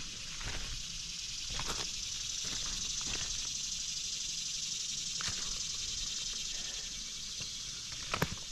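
A few footsteps on creek gravel, heard as sharp crunches about two seconds in, midway and near the end, over a steady high hiss.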